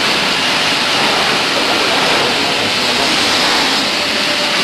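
Steady, loud rushing noise of running factory machinery, even and unbroken.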